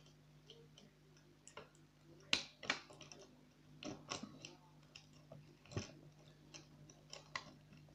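Lever pick and welding-rod tension tool working inside a 3-lever Basta lever lock: irregular small metallic clicks and scrapes as the levers are lifted and the bolt is pressed. The loudest click comes a little over two seconds in.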